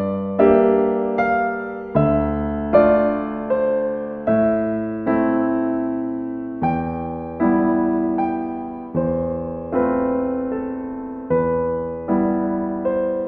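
Background music: slow, gentle piano, a new note or chord struck about every second and left to fade.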